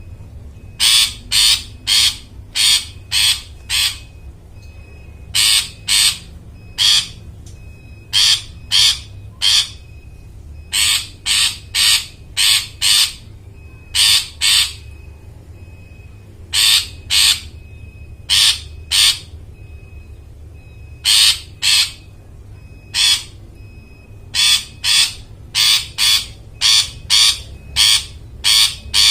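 Long-tailed shrike giving loud, harsh, rasping calls in bursts of three to six, about two calls a second, with short pauses between bursts. A steady low hum runs underneath.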